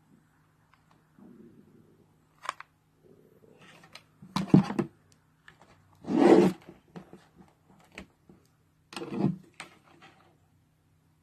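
Scraping and rubbing from hand work on a plastic cooler housing as glue is applied along its edges: scattered small scrapes and three louder rasping bursts, over a faint steady low hum.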